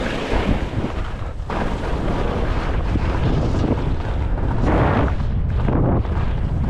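Skis scraping and chattering over choppy, hard-packed snow in surges with each turn, loudest about five seconds in, over a steady rumble of wind buffeting the microphone at speed.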